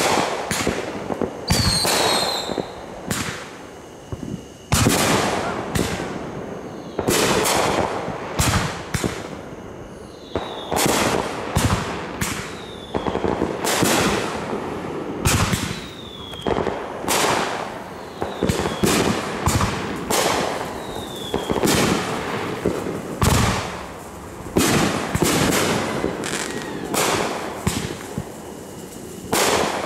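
Aerial fireworks bursting overhead: a rapid, irregular series of sharp bangs, about one or two a second, with crackling between them and several short whistles falling in pitch.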